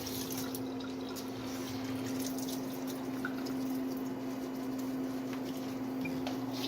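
Water running and trickling into a container to mix a baking-soda cleaning paste, over a steady low hum.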